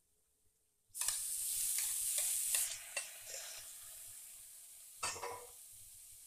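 Raw chicken pieces dropped into hot oil and masala in a frying pan: a sudden loud sizzle about a second in that slowly dies down. A spoon scrapes and knocks against the pan as the chicken is stirred in.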